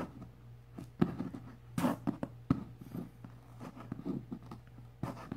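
Hands picking at and peeling packing tape off a cardboard box: scattered scratches and short tearing rips, with one louder rip about two seconds in.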